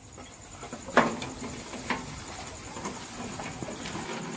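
Handling noise at the mouth of a borewell as PVC casing pipe is fed down: a sharp knock about a second in, then a few lighter clicks and taps over faint scraping.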